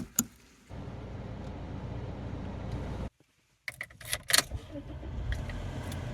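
Metallic clicks and jangling, like keys being handled, over the steady low rumble of a car running. The sound drops out to silence for about half a second a little after three seconds in.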